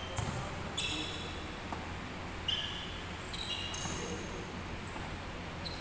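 Basketball sneakers squeaking on a hardwood court, several short high-pitched squeaks, with a basketball being dribbled.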